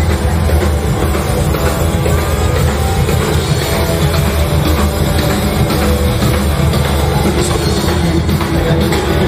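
Rock music with drums, playing steadily.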